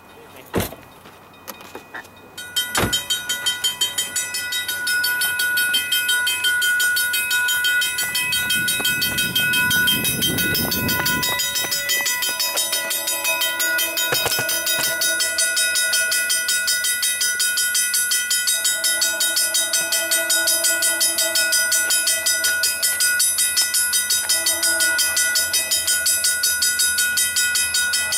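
Grade-crossing bell ringing rapidly and steadily. A low rushing swell rises and fades around ten seconds in. Then the lead locomotive's horn, an EMD SD40-2's, sounds the crossing signal: long, long, short, long.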